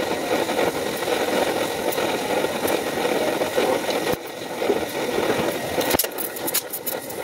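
Brazing torch flame hissing steadily while heating a copper refrigerant line joint. The sound dips briefly about four seconds in and again near the end, where a few short clicks are heard.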